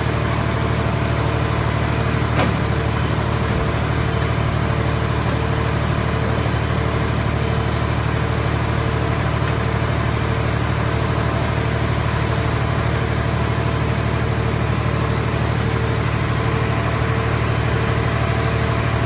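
Engine of a portable car-shell baler running steadily at idle, a low drone with a faint tone pulsing about twice a second and one short click a couple of seconds in.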